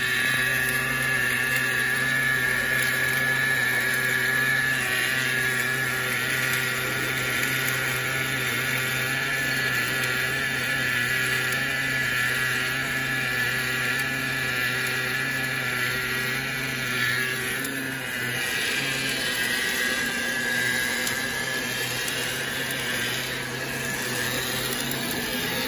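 Wire-fed automatic welding arc burning steadily as the machine runs a circumferential weld joining a rod end to a hydraulic cylinder rod, a continuous hiss and buzz over a steady low machine hum.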